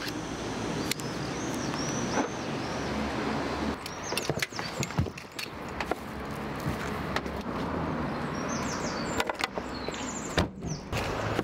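Doors and tailgate of a small Citroën hatchback being opened and handled: scattered latch clicks and knocks, bunched about four seconds in and again near the end, over a steady background hiss.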